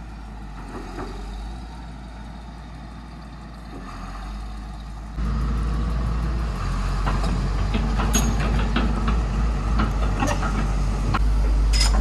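Excavator's diesel engine running steadily, getting louder about halfway through. In the second half it is joined by repeated sharp metallic clanks and knocks from the machine as it works.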